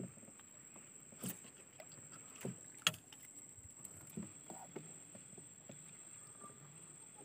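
A few faint knocks and clicks of gear being handled in a small wooden boat, the sharpest about three seconds in, over a steady thin high whine.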